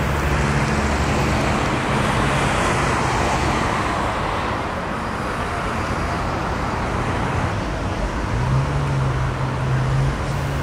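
Tram running on street track, a steady rumble of wheels on rail that swells and eases a few seconds in, with a low motor hum near the start and again near the end.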